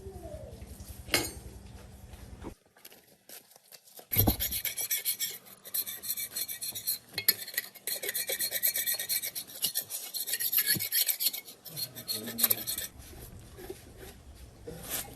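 A hand file rasping on a metal engine part in quick, repeated back-and-forth strokes for about nine seconds. Before it, a low steady machine hum cuts off about two and a half seconds in, and a thump sounds about four seconds in, just as the filing starts.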